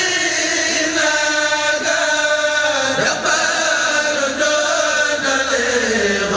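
Voices chanting a Mouride khassida, an Arabic devotional poem, in long drawn-out held notes, the melody sliding slowly downward near the end.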